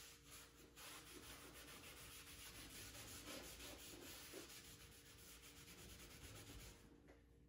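Faint rubbing of a stain-soaked cloth wiped across a wooden tabletop, a soft continuous scrubbing hiss that stops near the end.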